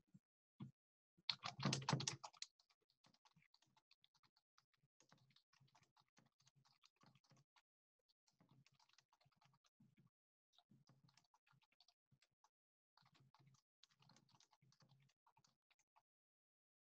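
Faint typing on a computer keyboard, in runs of quick key clicks with short pauses. A brief louder noise comes about a second and a half in.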